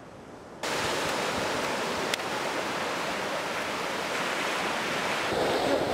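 Ocean surf washing onto a sandy beach, an even rush of noise that jumps suddenly louder just under a second in and then holds steady.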